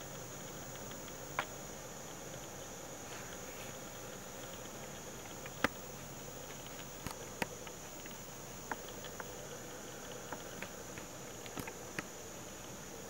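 Steady high-pitched chorus of insects in the background, with about ten short sharp ticks scattered through it, the loudest a little before the middle.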